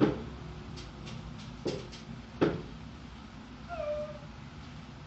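A few sharp knocks, typical of dishes or cupboards being handled, the strongest about two and a half seconds in. About four seconds in comes a brief squeal with clear overtones that falls slightly in pitch.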